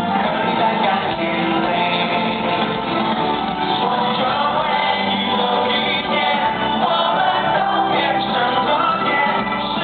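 Live rock band music with many voices singing together, going on steadily without a break.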